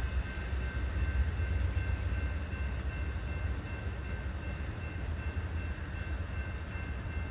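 Low, steady rumble of the Amtrak Sunset Limited passenger train rolling along, slowly fading.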